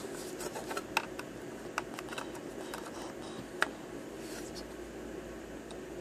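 A few small, sharp clicks and scrapes from a laptop DDR3 SO-DIMM RAM stick being handled and pushed into its memory slot, the sharpest about three and a half seconds in, over a steady background hum.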